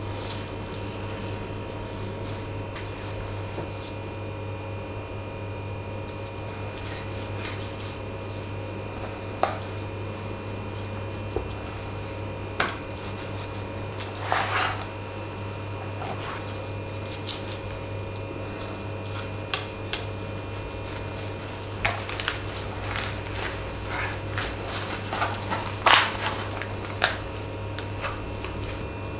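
Knife cutting and trimming a raw whole chicken on a plastic cutting board: scattered clicks and taps of the blade on the board and wet squishing of skin and flesh. There are louder cracks and snaps in the last few seconds as the chicken is pressed flat and its middle bones crack, over a steady low hum.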